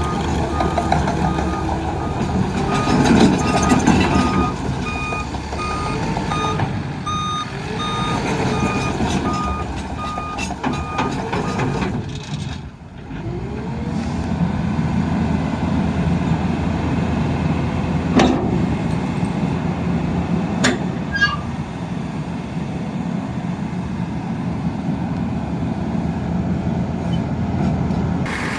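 Takeuchi TL12-V2 track loader's diesel engine running while its backup alarm beeps steadily, the sign that the machine is travelling in reverse; the beeping stops about twelve seconds in. The engine dips briefly, then runs on steadily, with two sharp clanks later on.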